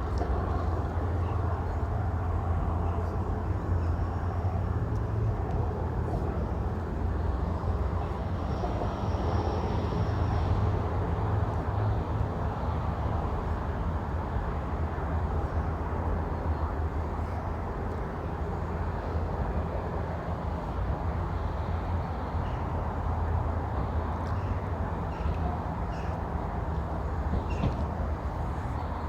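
Steady low outdoor rumble with no distinct events: a constant background drone without splashes, clanks or voices.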